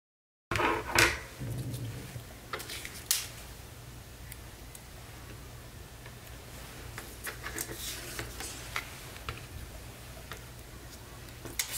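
Scissors snipping paper and paper cutouts being handled and set down on a cutting mat: scattered small clicks and rustles, the loudest about a second in and about three seconds in, over a low steady hum.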